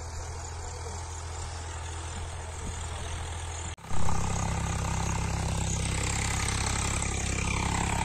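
Tractor engine running steadily with a low hum. It breaks off sharply about four seconds in and comes back louder.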